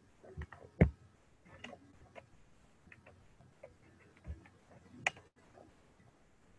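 Scattered, irregular clicks and taps, like keys or a mouse at a desk, with a louder knock about a second in and a sharp click about five seconds in.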